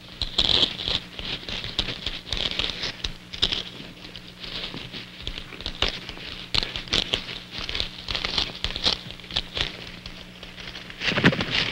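Leaves and stems rustling and crackling as a terrestrial orchid is pulled up by hand out of dense ground vegetation, with irregular snaps and crinkles throughout.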